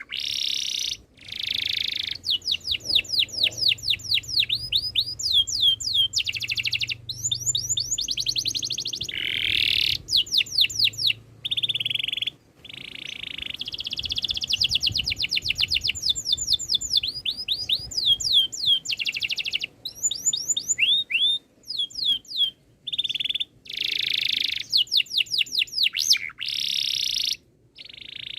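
Domestic canary singing: phrase after phrase of fast rolling trills and rapid repeated whistled sweeps, each run lasting a second or two with short breaks between.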